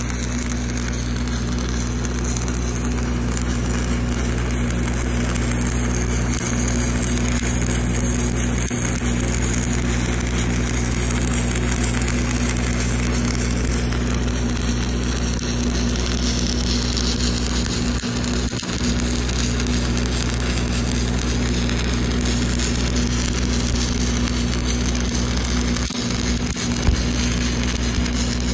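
Stick welding with a 5/32 Lincoln Excalibur 7018 low-hydrogen rod at about 188 amps: the arc burns with a steady, unbroken crackle as the cap is run around the pipe, over a steady low hum.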